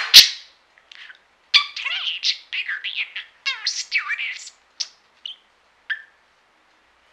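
Talking budgerigar chattering mimicked phrases ("My cage is bigger on the inside", "Oh, stewardess") in its high, buzzy voice with warbling, then a few short chirps before falling silent. A sharp click sounds just at the start.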